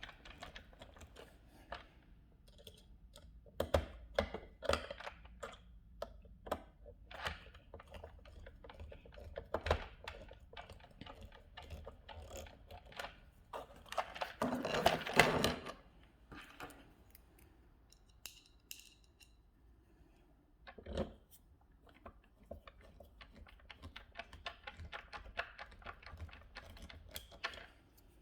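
Hard plastic clicks, taps and knocks of replacement wheels and 3D-printed hex adapters being handled, fitted and screwed onto a Tyco Rebound RC car. There is a busier burst of handling about halfway through and one louder knock about three quarters of the way in.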